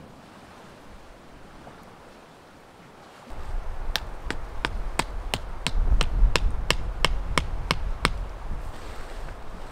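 Stake being hammered into the ground to peg down a canvas lavvu: about a dozen sharp knocks at roughly three a second, starting about four seconds in and stopping near eight seconds. Wind rumbles on the microphone underneath.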